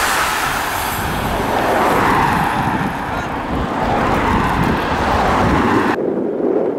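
Road-race traffic passing close to the roadside: a steady rush of bicycle tyres and vehicle noise with wind on the microphone. About six seconds in it switches abruptly to a duller, muffled wind rumble.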